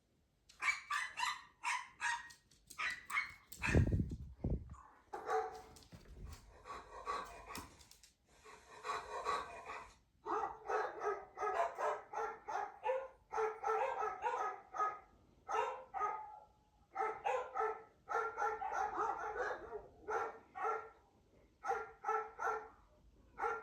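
Dog barking repeatedly in quick runs of short barks with brief pauses between them. There is a low thump about four seconds in.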